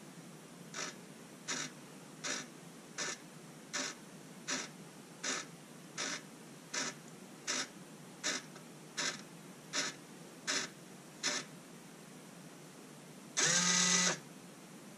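Hobby servo motor parking on its first power-up: about fifteen short, faint buzzes at an even pace, roughly three-quarters of a second apart, then after a pause one louder, longer buzz of under a second near the end.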